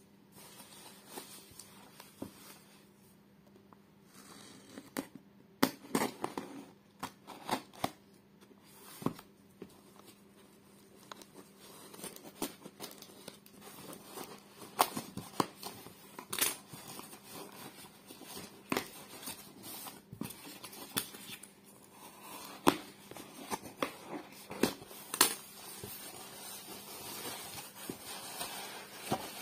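A cardboard shipping box being handled and opened: scattered sharp clicks, scrapes and tearing of packing tape and cardboard. Bubble wrap crinkles near the end.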